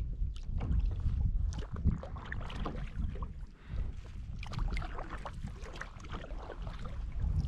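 Water splashing and trickling around a kayak moving across a lake, in many short irregular splashes, with a steady low wind rumble on the microphone.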